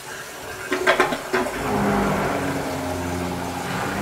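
A few sharp knocks, then, about one and a half seconds in, a Saniflo Sanigrind Pro grinder pump switches on and runs with a steady motor hum as it pumps away the flushed toilet water.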